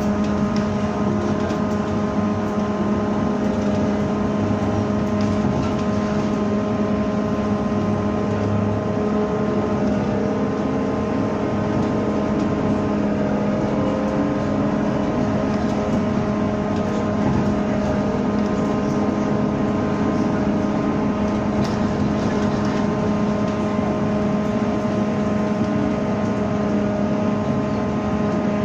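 MAZ-203T70 trolleybus in motion, heard from inside the passenger cabin: a steady electrical hum with several fixed tones over continuous road and tyre noise.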